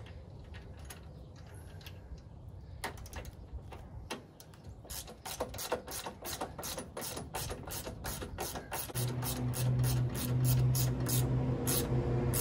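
Ratchet wrench clicking in quick, repeated strokes as the bolts holding a snow blower's handle assembly are tightened. A steady low hum comes in about nine seconds in.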